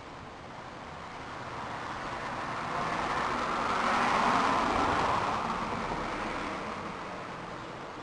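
A vehicle passing by: a steady rushing noise swells to a peak about halfway through and fades away again.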